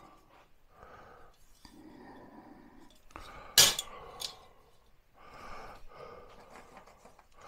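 A button-style foot being fitted onto a shelving upright, locking in with one sharp click about three and a half seconds in and a lighter click just after, amid soft rustling as the parts are handled.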